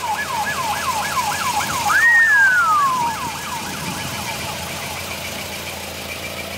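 Emergency vehicle siren in its fast yelp, falling sweeps about four a second, with one slower, louder wail about two seconds in, then fading away.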